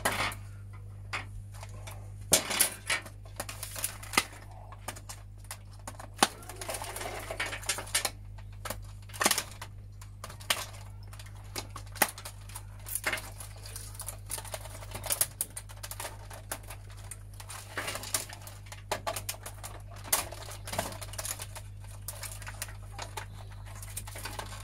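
Irregular clicks, taps and rattles of hands working the plastic casing, wires and circuit board of an opened CD cassette player, with a steady low hum underneath.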